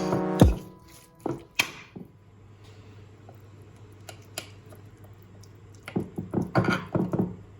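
Kitchen handling sounds during food preparation: a couple of separate knocks, then a quick run of clicks and knocks of utensils and dishes near the end, over a faint steady hum.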